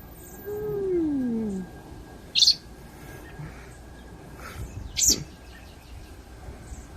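A low cry sliding downward in pitch for about a second, followed by two sharp, high bird chirps about two and a half seconds apart. The first chirp is the loudest sound.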